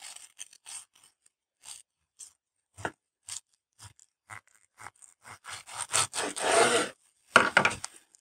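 Knife sawing through a grill-toasted burger bun and its fillings in a series of short strokes, with a denser, louder run of strokes about six to seven seconds in and one last sharp stroke near the end.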